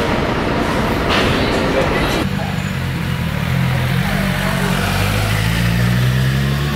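Busy street sound with passers-by talking, then, after a cut a little over two seconds in, a road vehicle's engine humming low and steady, its pitch shifting slowly.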